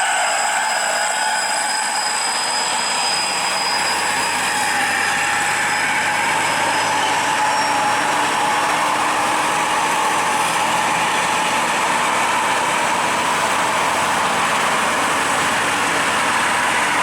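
Heavy vehicle engine running steadily under load on a steep climb, with a thin high whine over even mechanical and road noise.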